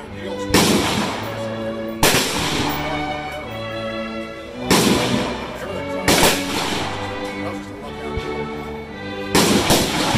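Background music with held notes, broken by about five gunshots at uneven intervals, each louder than the music.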